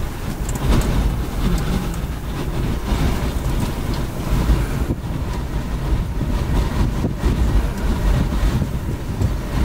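Strong wind buffeting the microphone: a gusty low rumble that rises and falls.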